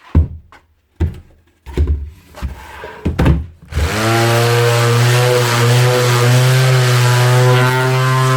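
A few loud knocks and clunks as the sander is handled. About four seconds in, a Makita BO4900 half-sheet orbital finishing sander switches on and runs steadily, its freshly replaced base and paper clamps holding the paper.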